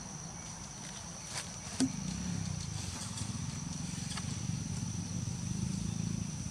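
A steady high-pitched insect drone over a low rumble that grows louder about two seconds in, with two sharp clicks just before.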